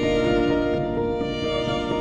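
Soft background music with sustained bowed-string notes, the melody moving slowly from one held note to the next.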